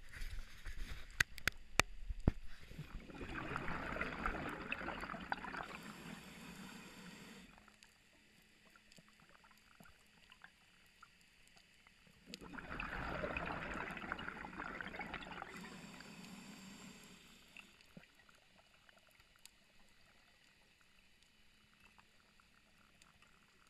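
Scuba diver's exhaled breath bubbling out of the regulator underwater: two long exhalations of about four to five seconds each, roughly nine seconds apart, with quiet stretches between. A few sharp clicks sound in the first two seconds.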